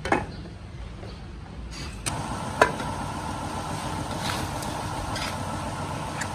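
A metal lid clinks on a steel wok, then from about two seconds in a metal ladle stirs the fish curry and knocks against the wok a few times, over a steady low rumble.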